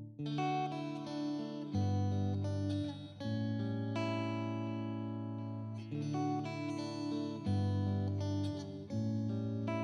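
Background music: solo acoustic guitar, plucked chords changing every second or two.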